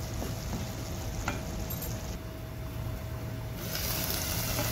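Minced mutton masala sizzling as it fries in a non-stick pan, with a wooden spatula stirring and scraping through it. The sizzle gets brighter and a little louder about three and a half seconds in.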